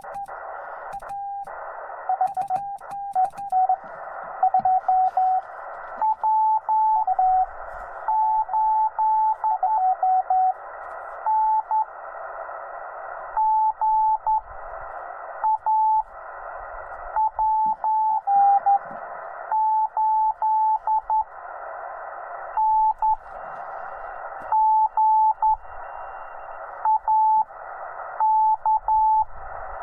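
Morse code (CW) on a Yaesu FT-891 ham radio transceiver: a single steady-pitched tone keyed in dits and dahs. It sits over the receiver's band hiss, which cuts in and out in blocks of a second or two.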